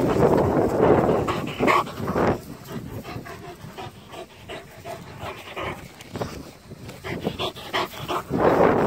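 Large dogs panting close to the microphone during play, with loud surges of breath at the start and again near the end as one dog pushes its face up to the microphone.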